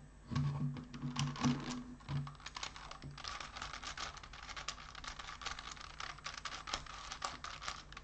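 Plastic pieces of a Dayan Gem 6 twisty puzzle clicking and rattling in quick succession as its layers are turned by hand, testing whether the trimmed shard pieces still catch. A low hum sounds over the first two seconds.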